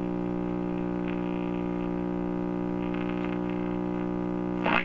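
Lafayette HA-63 tube communications receiver's speaker putting out a steady, buzzing hum with many overtones, the kind of power-supply hum that dried-out electrolytic filter capacitors let through; the owner says the filters definitely need replacing.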